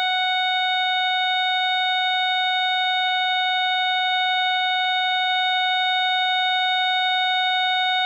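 Gillette Captain Kelly model 929 photoelectric smoke detector sounding its alarm on a test-button test: one continuous, steady, high-pitched buzz from its squealer horn.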